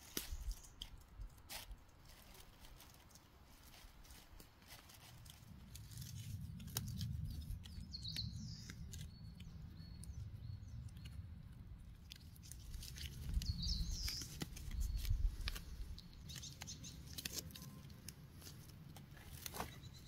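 Faint rustling and scattered clicks and snaps of hands working plastic deer netting and string over dry leaf litter and twigs, with a low rumble through the middle and a couple of short bird chirps.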